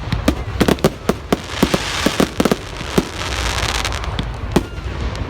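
Fireworks going off: a rapid volley of sharp bangs and pops in the first half, a crackling hiss through the middle, then a few single bangs near the end.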